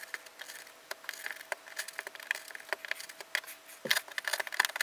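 X-Acto knife blade scraping and picking into hardened Sculptamold and styrofoam terrain: a run of small scratchy clicks that gets denser and louder near the end.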